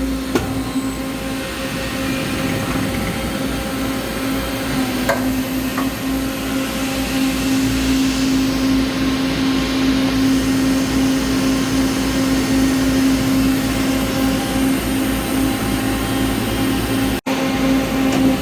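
Peddinghaus CNC beam drill line running under power: a steady, loud machine hum with a few faint clicks, cutting out for an instant near the end.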